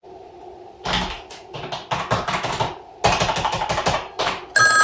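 Typing on a computer keyboard in quick bursts of keystrokes with short pauses between them. Right at the end a mobile phone ringtone starts.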